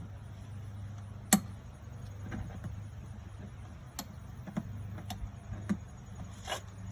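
Scattered sharp clicks and clinks of bungee-cord hooks and the cart's frame being handled, about seven in all, the loudest about a second in, over a steady low hum.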